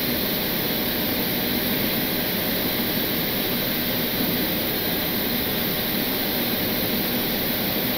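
Steady cockpit noise of an Embraer E-190 in flight on approach: even rushing airflow and jet-engine noise with a faint low hum, unchanging throughout.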